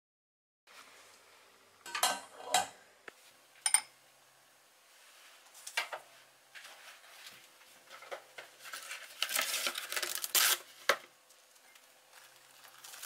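A few light clinks and knocks of a bowl being handled, then plastic cling film crinkling as it is pulled and stretched over the bowl, loudest about ten seconds in.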